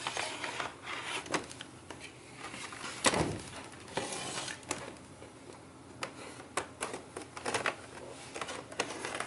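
Scattered plastic clicks and snaps as an HP 15 laptop's palm rest is pried loose from its bottom base, its clips letting go around the corners. About three seconds in comes a longer scraping sweep as the laptop is slid and turned on the table.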